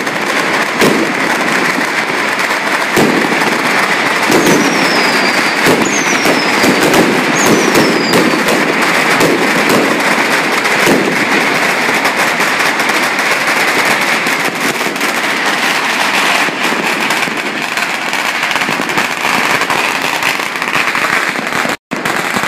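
Dense, continuous crackling and banging of Chinese New Year firecrackers and fireworks going off together. Three short whistles fall in pitch about four to eight seconds in. The sound cuts out for a moment near the end.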